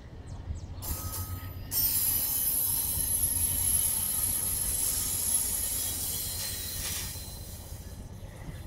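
Vale passenger train's coaches rolling past on departure: a steady low rumble of wheels on rail, with a high, thin squeal coming in about two seconds in. The sound fades near the end as the last coach goes by.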